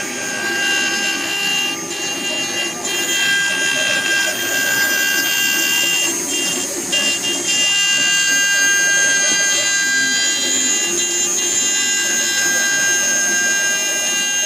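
Small CNC router engraving wood: the spindle and stepper motors running with a steady high whine of several fixed tones, which break and shift briefly a few times as the machine changes its moves.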